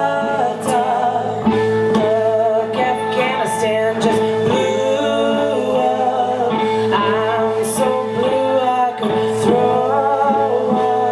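Live band playing: a sung, gliding melody over guitar and drums, with cymbal hits.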